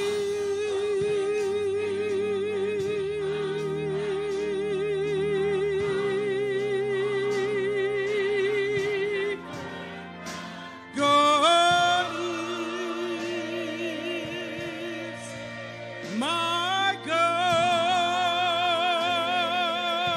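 Gospel choir singing with organ: one long note held with vibrato, then the voices swoop up into higher held notes about 11 and 16 seconds in, over sustained low organ tones.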